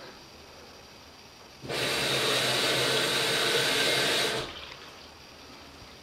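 Front-loading washing machine running water through itself: a loud rush of water with a steady low hum starts abruptly a little under two seconds in and stops about three seconds later.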